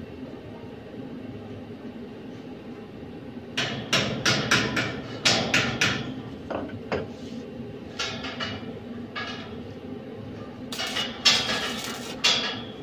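Hammer striking steel grill bars in bursts of sharp metallic taps: a quick run of about eight blows, then a few scattered ones and a last cluster near the end.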